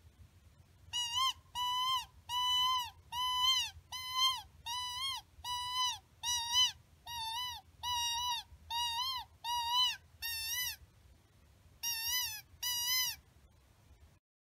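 Predator call for luring coyotes, sounding a string of about fourteen short, high, pitched cries, roughly one every 0.7 seconds, with a pause before the last two.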